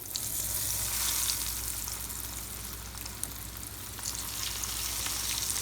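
Breaded chicken cutlets frying in shallow hot oil in a skillet: a steady crackling sizzle that jumps up sharply at the start as the pieces go into the oil.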